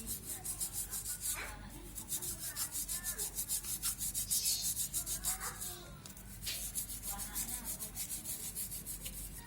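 A stiff brush scrubbing a hard surface in rapid, even back-and-forth strokes, pausing briefly twice.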